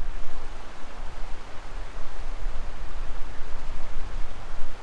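Steady rush of fast-flowing river water, an even hiss over a low, unsteady rumble.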